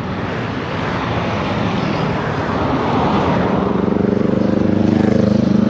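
Yamaha Aerox 155 scooter's single-cylinder engine accelerating under the rider, over wind and road noise. The engine hum grows steadily louder and comes up clearly from about halfway through.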